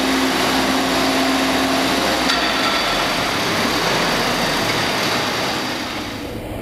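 Boom lift's motor and hydraulic pump running steadily, a machine noise with a faint steady whine.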